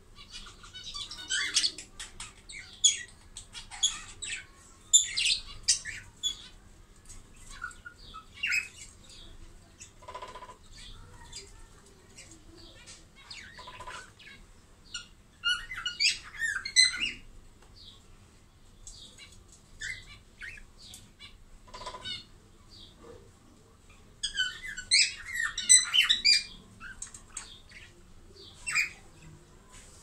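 A courting pair of budgerigars chirping and chattering in short, high bursts, with quieter stretches between and a few lower squawks.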